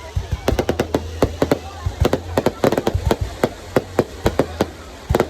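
Fireworks going off in a rapid, irregular string of sharp bangs and cracks, several a second.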